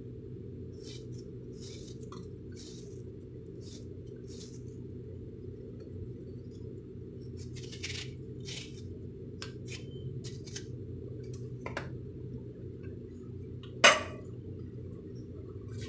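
Kitchen knife cutting through watermelon flesh and rind over a plate, a scatter of short scrapes and clicks. One sharp clink of the knife against the plate near the end is the loudest sound, and a steady low hum runs underneath throughout.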